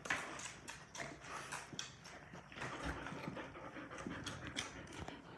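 Nursing Labrador retriever panting while her three-week-old puppies feed, with quick short scuffling and snuffling noises.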